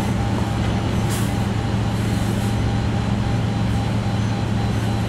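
A steady low hum over an even hiss of background noise, unchanging throughout.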